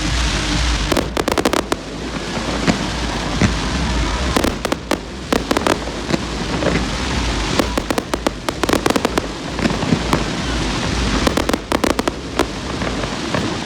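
Fireworks display: rapid crackling pops in several dense clusters, about a second in, around four to five seconds, around nine seconds and again around eleven to twelve seconds, over a continuous low rumble.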